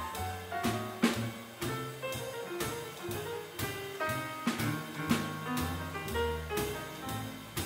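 Live swing jazz from a piano, double bass and drum kit: piano lines over plucked bass notes, with the drums keeping a steady beat about twice a second.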